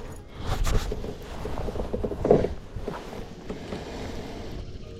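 Spinning or baitcasting fishing reel being cranked, its gears clicking and creaking unevenly as line is wound in.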